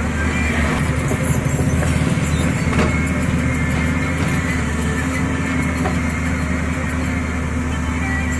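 JCB backhoe loader's diesel engine running steadily, with a few faint knocks.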